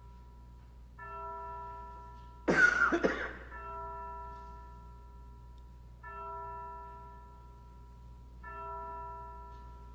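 A bell tolling slowly, about one stroke every two and a half seconds, four strokes in all, each ringing on and fading away. A loud cough breaks in about two and a half seconds in.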